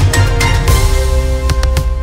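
Intro music with a steady beat and held notes, with a rising hiss-like swell about two-thirds of a second in.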